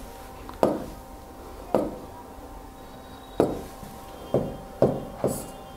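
Marker pen knocking against a whiteboard while writing numbers: six sharp taps at uneven spacing, the last three closer together.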